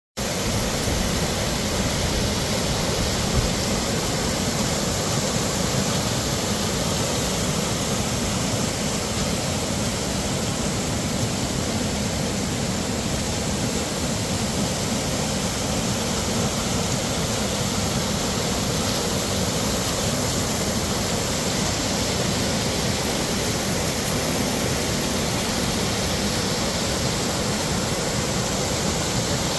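Heavy waterfall: a steady, dense rush of falling water with no letup.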